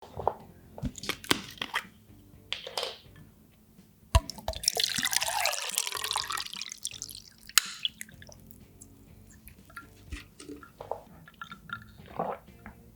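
Light clicks and clinks of tableware, with about three seconds of liquid pouring or splashing a little way in.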